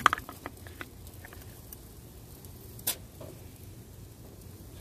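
Metal kitchen tongs clicking and tapping as they pick marinated fish pieces out of a bowl: a quick cluster of clicks at the start, a few light taps, and one sharp click about three seconds in, over a low steady background noise.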